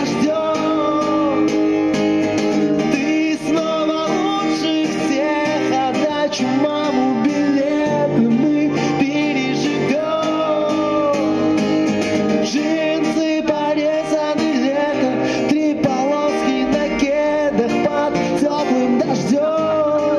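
A man singing a Russian pop-rock song while strumming an acoustic guitar, live and unamplified.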